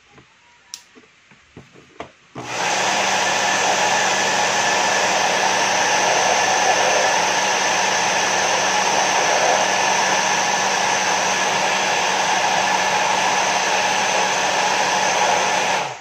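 Hair dryer with its back cover off switched on for a test run: after a few light clicks its motor and fan start about two and a half seconds in and run steadily with a rush of air and a low hum, then cut off suddenly just before the end. It runs again now that the broken, burnt section of wire in its cord has been cut out and rejoined.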